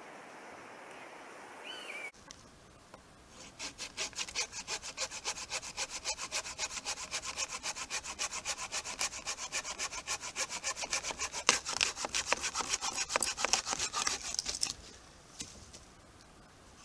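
Folding pruning saw cutting through a branch by hand: a quick, even run of rasping back-and-forth strokes, several a second, that starts a few seconds in and stops suddenly near the end.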